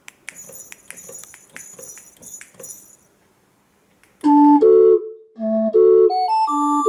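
A rapid run of light clicks and jingling for about three seconds, then a pause, then a MIDI barrel organ starts playing a tune on flute-like pipes about four seconds in.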